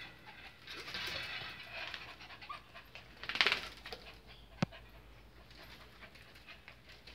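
A small pinscher dog panting softly while a harness is fastened on it, with one sharp click about halfway through.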